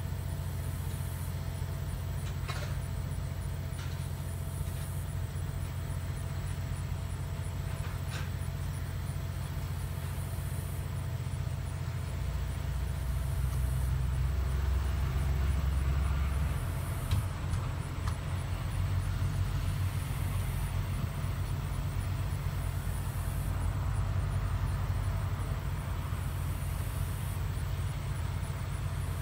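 A vehicle engine, most likely the parked box truck's diesel, runs at a steady low idle. The rumble grows a little louder for a few seconds near the middle, and a few faint clicks sound over it.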